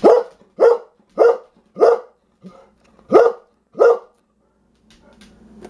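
English Labrador retriever barking repeatedly: six loud, short barks about two-thirds of a second apart, with a softer bark in a brief gap midway.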